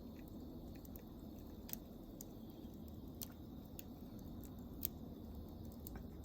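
Wood campfire crackling: irregular small crackles over a soft steady hiss, with a few louder sharp pops.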